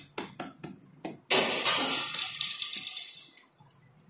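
A few light slaps of hands patting a thin sheet of dough flat on a stone countertop, then about a second in a sudden loud crash that fades away over about two seconds.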